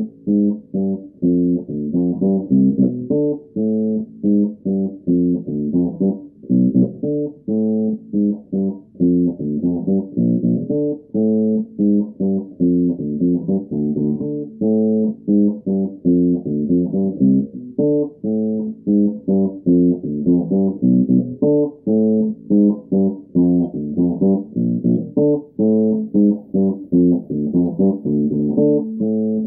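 Electric bass guitar played solo: a fast riff of short plucked notes, several a second, with a longer held note coming back every few seconds.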